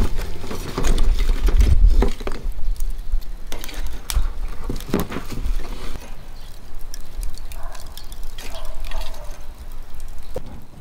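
Wood and charcoal fire in a barbecue grill crackling, with scattered sharp pops, and a low wind rumble on the microphone in the first two seconds.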